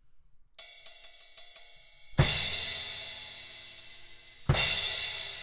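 Paiste Signature Dark Energy 16-inch crash cymbal tapped lightly about five times from about half a second in. It is then crashed hard twice, a little over two seconds apart, each crash with a low thump under it and a long ringing fade.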